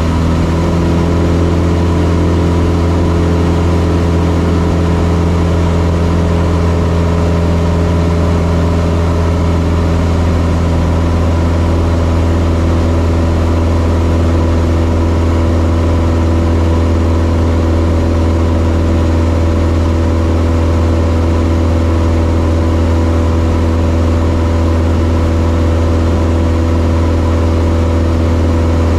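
Cessna 172's piston engine and propeller droning steadily, heard inside the cockpit, with the engine note shifting slightly about a second in and then holding.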